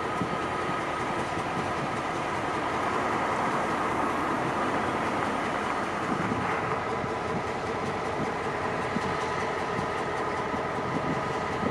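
Diesel locomotives with EMD engines idling at a standstill: a steady engine drone with a constant hum of several tones.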